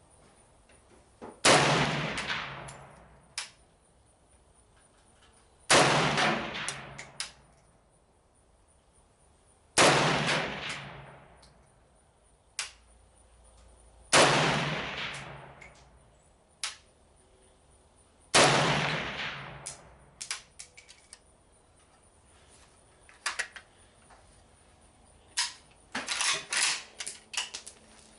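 Arsenal SLR-107FR AK rifle in 7.62x39 firing five single shots of Tula 124-grain ammunition, about four seconds apart, each followed by a long fading echo. Lighter metallic clicks and clatter follow over the last several seconds.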